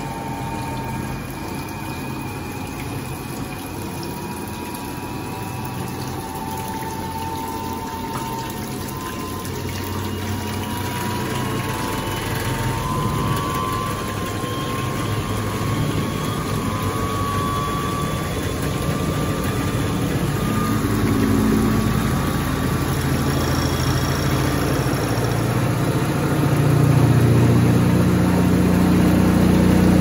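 1958 Hoovermatic 3174 twin-tub washing machine running its spinner with a load of wet clothes while its pump sends the water out through the drain hose, with the pump belt slipping. A faint whine rises slowly in pitch over the first half, and a low rumble grows louder near the end.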